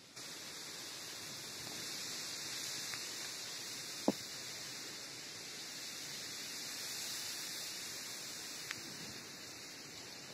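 Steady high-pitched hiss, with one sharp click about four seconds in and a fainter click near nine seconds.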